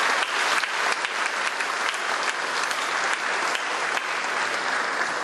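Audience applauding, a steady dense clapping by a large audience in a reverberant hall.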